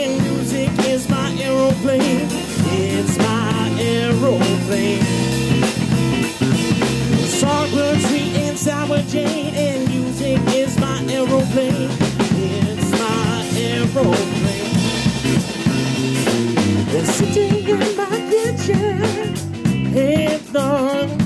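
Live band playing: drum kit, electric bass and electric guitar, with the drums' strokes standing out in a steady groove.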